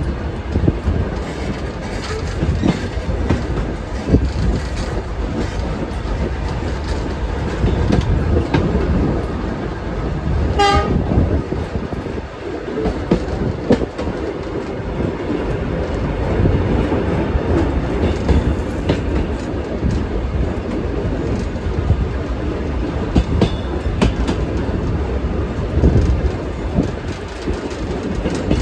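Passenger coaches of a steam-hauled train running along the track, a steady rumble with clattering from the wheels and rail joints. About ten seconds in, the locomotive gives one short toot.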